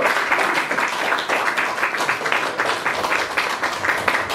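Audience clapping and applauding: many rapid, irregular hand claps overlapping into steady applause.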